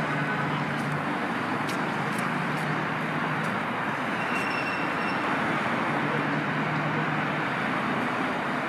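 City road traffic: cars passing on a nearby road, with a steady noise of tyres and engines and a low engine hum.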